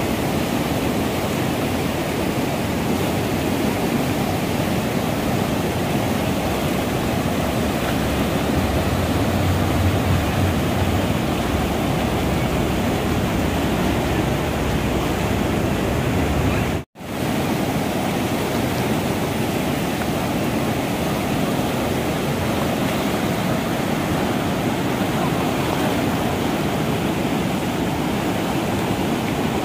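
Loud, steady rush of whitewater rapids: river water churning over rocks. The sound drops out for a split second once, a little past halfway.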